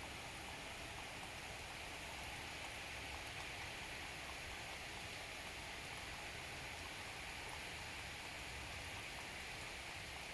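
Steady rain falling during a summer thunderstorm, an even hiss with no thunder in it.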